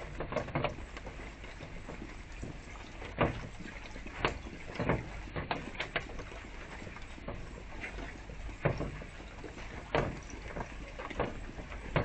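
Irregular sharp taps of spotted doves pecking at seed in a wooden feeder tray, over the steady trickle of a small garden fountain.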